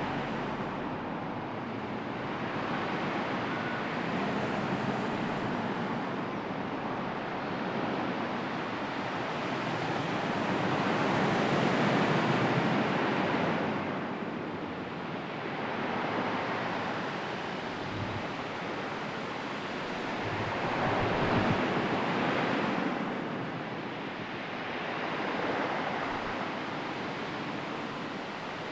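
Sea surf: waves rolling in and washing back, the sound swelling and easing every few seconds.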